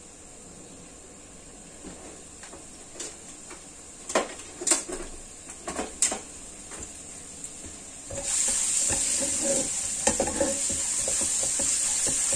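Minced garlic frying in oil in a wok: a few sharp pops and crackles, then from about eight seconds in a steady loud sizzle, with a spatula stirring and scraping the pan.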